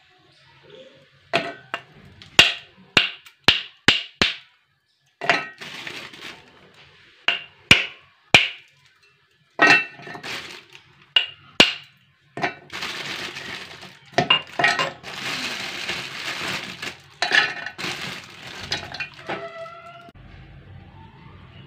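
Dry lumps of multani mitti (Fuller's earth clay) snapped by hand and dropped into a stainless steel grinder jar: sharp cracks and clinks, some with a short ring from the jar. About halfway through they give way to several seconds of dense crumbling and crackling.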